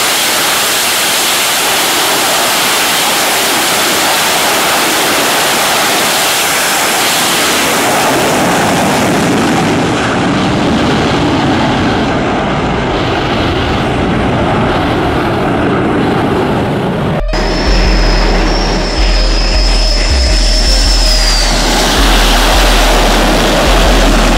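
Twin jet engines of an F/A-18 strike fighter running at full power for a catapult launch off an aircraft carrier deck: a loud, steady rush of jet noise. About seventeen seconds in it cuts off abruptly and music with a heavy bass beat takes over.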